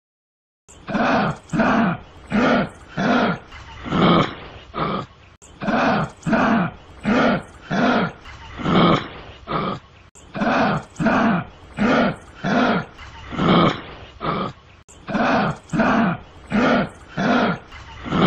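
Kangaroo calling: a fast, even series of short, pitched calls, well over one a second, starting about a second in and broken by brief cuts every few seconds.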